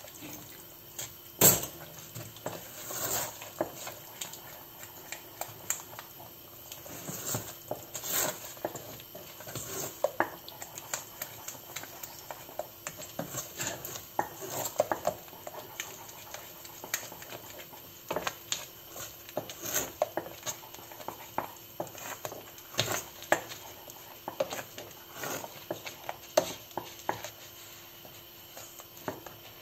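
Wooden spoon stirring a thick béchamel in a stainless steel pan, scraping and knocking against the pan's sides and bottom in irregular clicks and taps, the loudest knock about a second and a half in.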